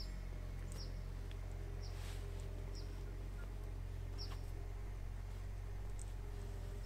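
A small bird chirping, short high falling notes about once a second, over a steady low hum.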